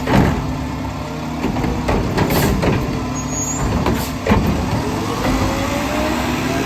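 Mack LR garbage truck with a McNeilus Meridian front-loader body working: engine revving up and down, with short air hisses about two and four seconds in and heavy clunks near the start and just after the second hiss.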